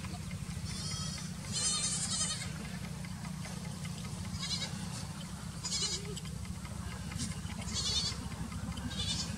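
Goats bleating: several short, wavering bleats spaced a second or two apart over a steady low rumble.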